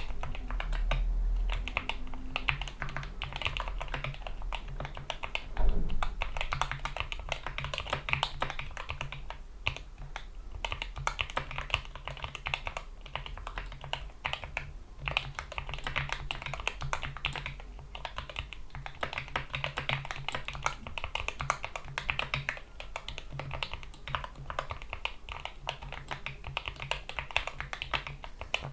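Continuous typing on a GK61 mechanical keyboard with lubed Gateron Yellow linear optical switches, PBT keycaps and rubber O-ring dampeners: a dense run of rapid key clacks. One louder thump comes about six seconds in.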